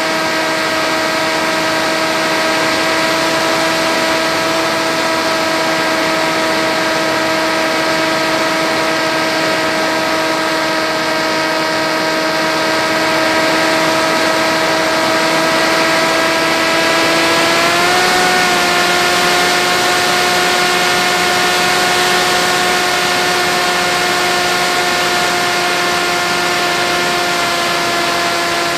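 FX-61 flying wing's electric motor and pusher propeller in flight, recorded from the onboard camera: a steady, loud drone with air rushing past. The pitch rises slightly a little past the middle and then holds.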